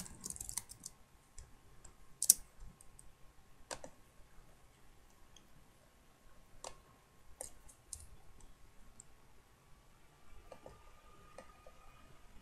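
Scattered, irregular sharp clicks, the loudest about two seconds in, over a faint steady high hum.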